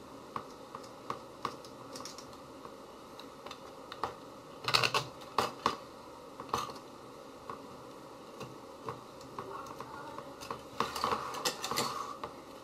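Small clicks and rattles of plastic propellers being handled and pushed onto a racing drone's motor shafts, with a denser run of clicks about five seconds in and again near the end.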